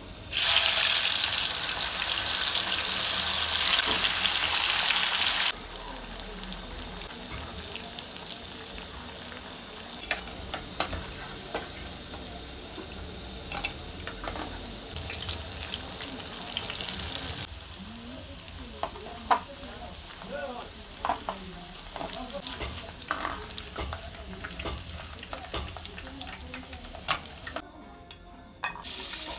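Soya bean tofu pieces hitting hot oil in an aluminium pan: a loud sizzle for about five seconds, then the oil settles to a quieter, steady sizzle. Short clinks of a metal slotted spoon against the pan come through as the pieces are turned and lifted out.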